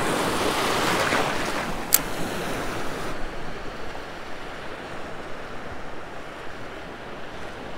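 Small wave breaking and washing in shallow surf, the wash dying down after about three seconds to a quieter hiss of water. A single sharp click about two seconds in.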